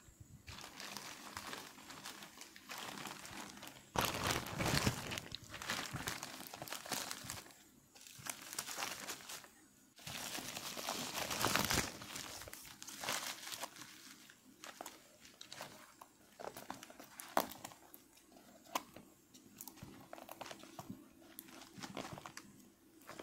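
Plastic courier mailer bag crinkling and rustling as it is handled and opened, with irregular sharp crackles and louder spells of rustling about four seconds in and again around ten to twelve seconds in.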